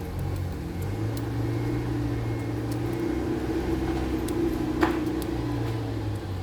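Steady low mechanical hum with a brief click about five seconds in.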